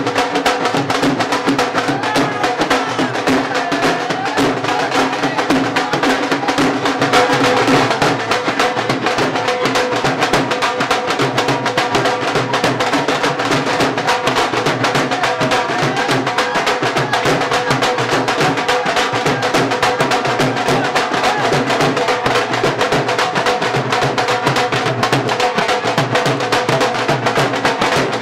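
Music with fast, steady drumming and held instrument tones underneath.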